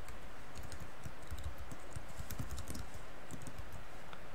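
Typing on a computer keyboard: a run of irregular key clicks over a steady background noise.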